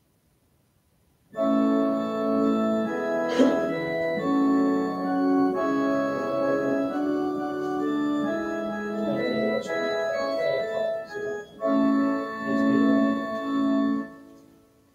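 Organ playing held chords of a hymn, coming in about a second in, dipping briefly about two-thirds through and dying away near the end.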